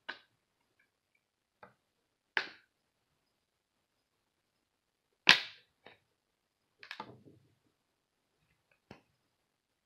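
Plastic snap clips of an Alcatel Onyx's back cover clicking loose as a plastic pry pick works around the edge: about seven sharp, separate clicks at uneven gaps, the loudest about five seconds in.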